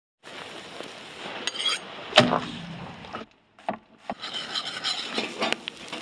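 Meat grilling over charcoal in a wire grill basket: a steady hiss broken by scattered clicks and knocks, with one loud metallic clank about two seconds in.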